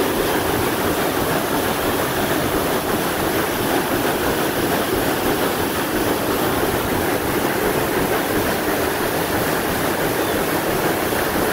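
The white oak and steel stern paddlewheel of a sternwheeler steamboat turning and churning river water: a steady rushing and splashing.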